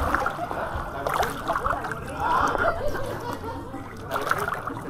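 Water splashing and sloshing in a swimming pool, with background voices.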